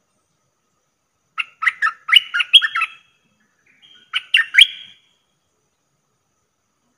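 Caged decoy bulbul singing two phrases of quick chirping notes, the first about a second and a half long and the second shorter after a brief pause.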